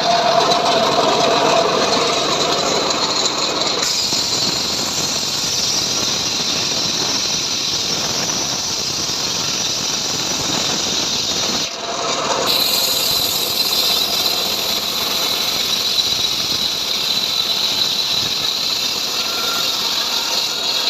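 Homemade band sawmill running and cutting through a sengon log: a steady, high whine of the saw blade over machine noise.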